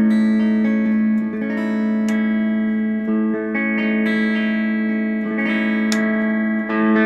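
Electric guitar with coil-split pickups played through a Boss Katana Mini amp on its clean channel with delay on: sustained chords and picked notes ringing over one another.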